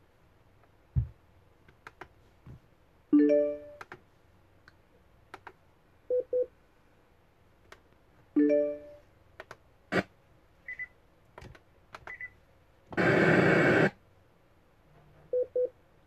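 Nikai NBTS30 Bluetooth speaker being tested after repair: its panel buttons click and the speaker answers with prompt tones, a three-note chime about 3 s in and again about 8 s in, pairs of short beeps, and brief high tones. Near 13 s it gives out about a second of loud hiss.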